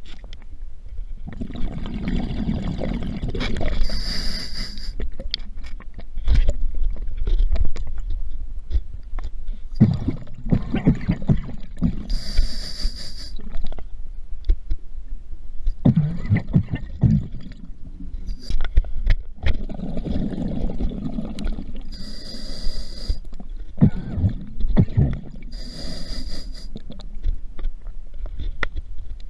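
Scuba diver breathing through a regulator underwater: bursts of rumbling, gurgling exhaust bubbles alternating with short hisses of inhaled air, repeating over several breaths.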